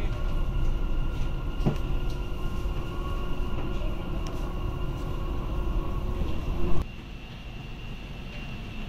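Dubai Metro train running, heard from inside the carriage: a steady rumble with steady motor whine. About seven seconds in, a brief louder knock, then the sound cuts off suddenly to a quieter steady hum.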